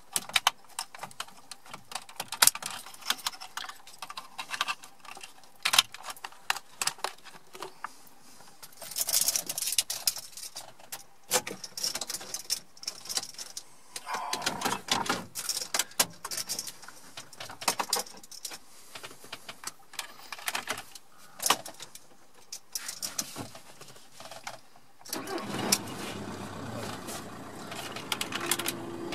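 Plastic clicks, knocks and rattles as wiring connectors are plugged into a VW T5 heater and blower control unit and the unit is worked into the dashboard. About 25 seconds in, a steady rushing sound with a low hum starts.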